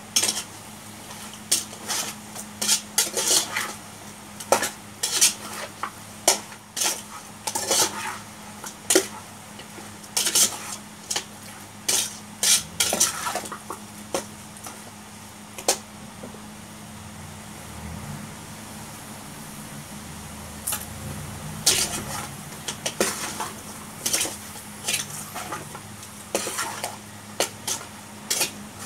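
A metal spatula scraping and knocking against an aluminium pot as chicken pieces are stirred and sautéed, with a light sizzle underneath. The strokes come irregularly, easing off for a few seconds midway.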